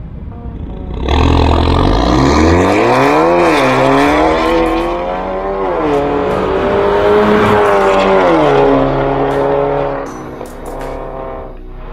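Mercedes CLA250's turbocharged four-cylinder through a de-catted Armytrix valvetronic exhaust with the valves open, revving hard as the car pulls away about a second in. The pitch climbs and dips twice with the upshifts, holds steady, then drops off near the end.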